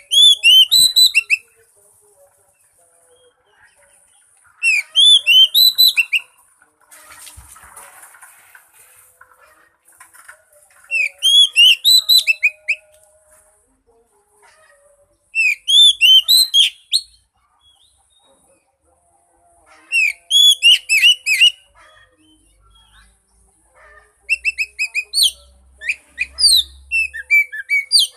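Oriental magpie-robin (kacer) song: six short phrases of rapid, high whistled notes, coming about every four to five seconds, with the last phrase longer and more varied.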